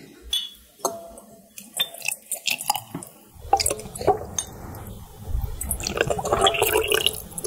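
Vinegar measured out by the spoonful into a stainless steel funnel: liquid dripping and trickling, with light clinks of a metal spoon against a drinking glass and the funnel.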